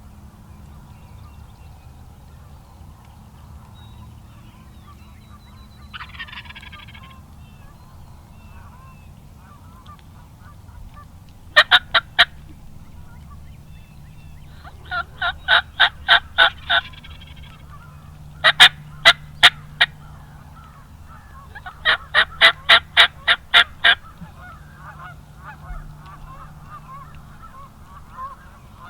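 Turkey call yelping: four loud series of evenly spaced yelps, about five notes a second, worked to call a tom back into range.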